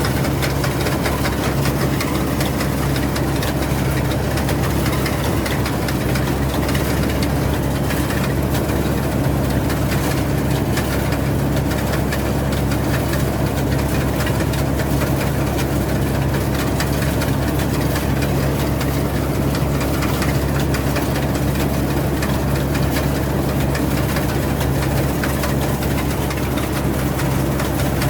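Rice combine harvester's engine running at a steady, unchanging drone.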